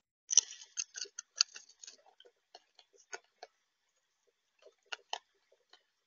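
Raccoon eating at a bird feeder close to the microphone: irregular clicks and crunches of teeth and claws on the feeder. A dense flurry of clicks in the first two seconds, then scattered ones, with a pair of sharp clicks near the end.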